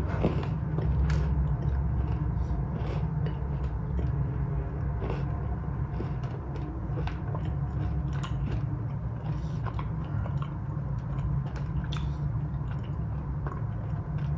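A person chewing a salted caramel cookie with chocolate and pretzel pieces: scattered small crunches and mouth clicks over a steady low hum.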